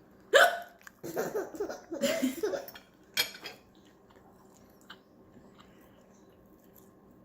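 A woman's single sharp hiccup about half a second in, followed by a couple of seconds of soft voice sounds and a short sharp sound about three seconds in, then quiet.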